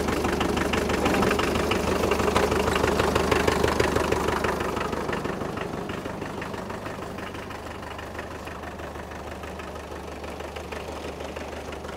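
Small McCormick D-430 tractor's diesel engine idling with the PTO engaged, driving a Heurebell HR462 rotary hay tedder that runs quietly. The engine's steady knock drops to a lower level about four seconds in.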